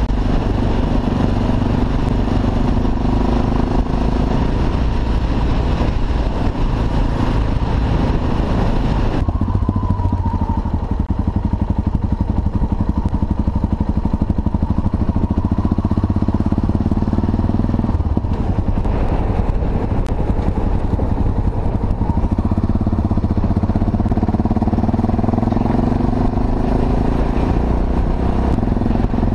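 Yamaha XT 660 X's single-cylinder engine running while the bike is ridden, with wind rushing over the camera's microphone. About nine seconds in the wind hiss drops off sharply as the bike slows, and from about eighteen seconds the engine note climbs again as it speeds back up.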